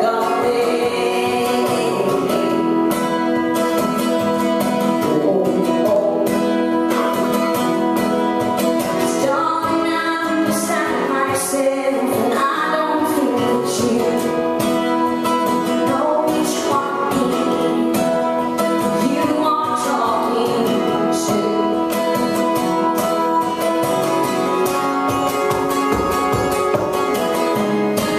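A woman singing while accompanying herself on acoustic guitar in a live performance.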